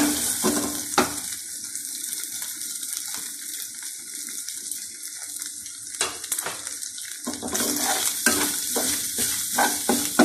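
Chicken mince sizzling in a steel frying pan, a steady hiss. A metal spoon scrapes and stirs in the pan with quick clicks in the first second and again through the last four seconds, mixing in shredded cabbage.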